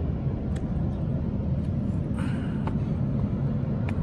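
Steady low rumbling outdoor noise, with a few faint clicks.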